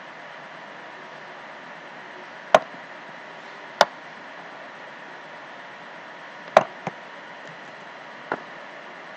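Five sharp, single clicks of a computer mouse at irregular intervals, two of them close together, over a steady background hiss.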